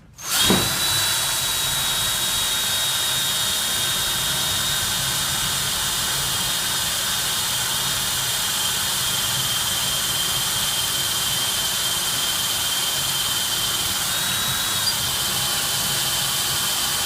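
Electric drill boring into a locked deadbolt, running steadily under load with a high motor whine that slowly sags in pitch as the bit cuts, and a brief waver near the end.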